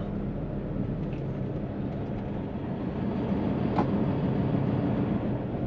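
Hino truck's diesel engine and road noise heard from inside the cab, a steady low hum as the truck rolls slowly in heavy traffic. There is one brief click about two-thirds of the way through.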